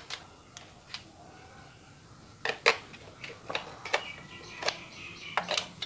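AA batteries being pushed into a plastic toy's battery compartment: a string of sharp clicks and taps, a few in the first couple of seconds, then more frequent from about two and a half seconds in.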